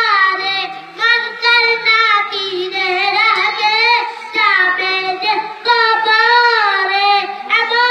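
A boy singing a Bengali naat, a devotional song in praise of the Prophet, in a high child's voice with long, wavering held notes and no instruments.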